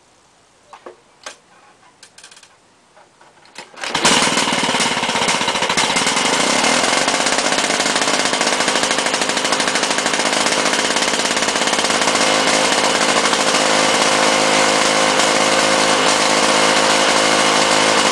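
A few faint clicks, then about four seconds in the 4.5 hp Lawn-Boy V two-stroke engine of a 1993 Lawn-Boy 10201 mower catches on choke and runs loud and steady, exhausting through its under-deck muffler.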